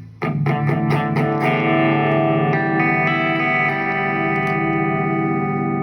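Electric guitar on a clean amp-sim channel, played direct through a pedalboard: a quick run of picked notes, then a chord left ringing with a slow, steady waver.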